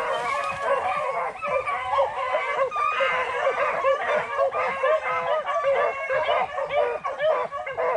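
A pack of beagles baying together, many overlapping voices in an unbroken chorus: rabbit hounds giving tongue as they run a rabbit's scent trail.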